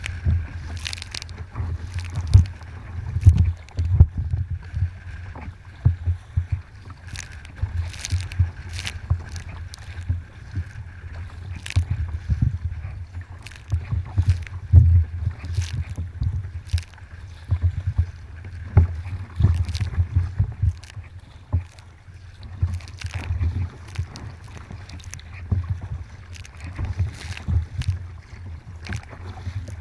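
Kayak paddling: the paddle blades dip and splash in the water again and again at an uneven pace, over a constant low rumble.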